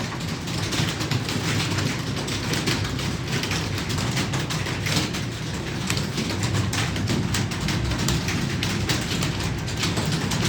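Many computer keyboards clattering at once in a dense, continuous stream of key clicks: several people typing fast during a timed typing test. A steady low hum lies under it.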